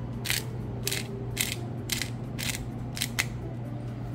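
Hand pepper mill grinding black peppercorns: short rasping crunches, about two a second, that stop a little after three seconds in.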